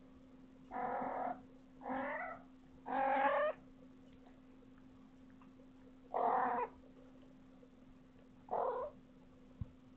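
A cat meowing five times in short, plaintive calls of about half a second each. Three come close together in the first few seconds, then there are two more spaced out, and the third is the loudest.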